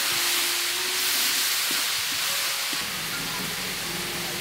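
Leafy greens sizzling as they are stir-fried in a hot metal wok, with a steady hiss that eases slightly after about three seconds. A metal spoon scrapes and taps against the pan a few times.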